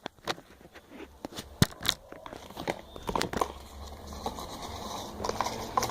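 Irregular small clicks, taps and crinkles of hands handling slime-making things: plastic containers, spoons, paint bottles and paper slips.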